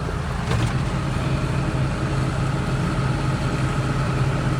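Diesel engine of harvest machinery running steadily with a low, even drone. There is a faint click about half a second in.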